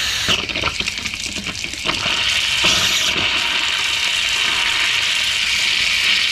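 Water gushing and splashing from an outdoor hose spigot opened wide to bleed air out of the supply line after a pressure reducing valve replacement. The flow is uneven and spitting for the first two seconds or so, then settles into a steady rush.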